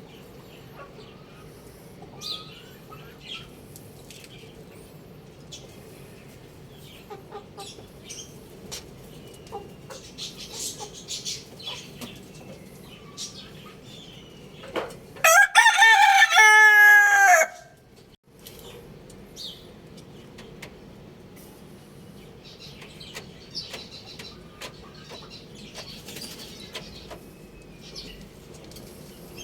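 Rooster crowing once, a single loud call a little over two seconds long about halfway through, dropping in pitch at the end. Short clucks and chirps come and go around it.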